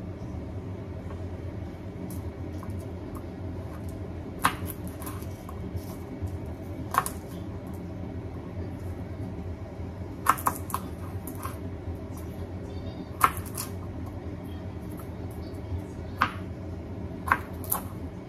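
Kitchen knife cutting garlic cloves on a cutting board: sharp single knocks of the blade against the board every few seconds, over a steady low hum.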